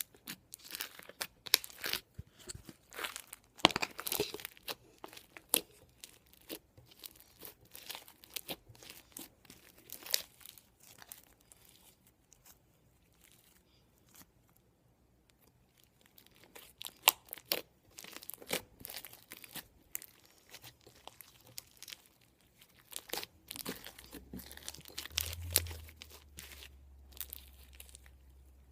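Homemade borax slime being stretched, squeezed and folded by hand, giving irregular sticky pops, clicks and crackles, with a quieter spell in the middle.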